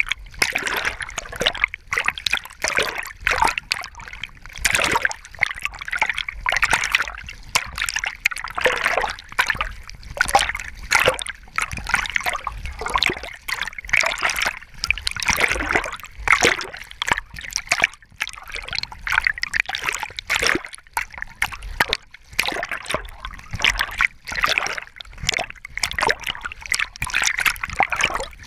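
Water splashing and sloshing right against a swimming Labrador retriever's body-mounted camera, in quick irregular surges as the dog paddles.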